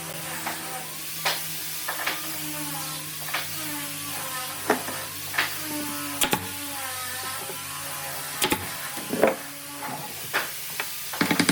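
Irregular short knocks and clicks, about ten of them, over a steady low hum that shifts in pitch now and then.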